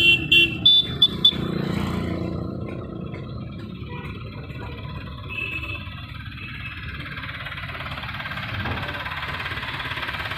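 Mahindra Supro mini truck's engine running steadily beside its raised hydraulic tipper body, with a quick run of about five short, loud, sharp sounds in the first second and a half.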